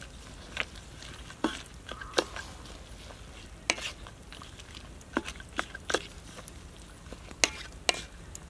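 Wooden spatula stirring soup in a metal wok, knocking against the pan in about ten sharp, irregular taps over a steady low background.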